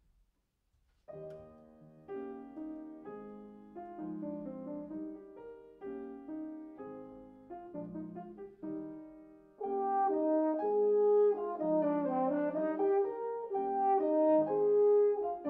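Grand piano playing an introduction, starting about a second in; a French horn then comes in a little before ten seconds in, playing a melody of held notes over the piano, and the music gets louder.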